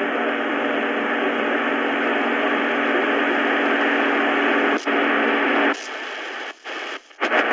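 Shortwave static and hiss from the Prunus J-150 BTS radio's speaker, with steady low hum tones running through it and a single click nearly five seconds in. The noise drops after about six seconds and cuts out twice briefly before coming back.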